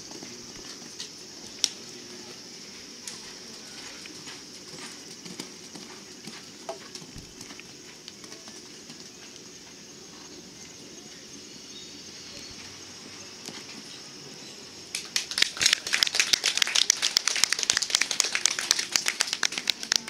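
A steady high insect buzz fills the background with a few scattered knocks. About three-quarters of the way through, spectators start clapping, loud and continuous, the loudest sound here.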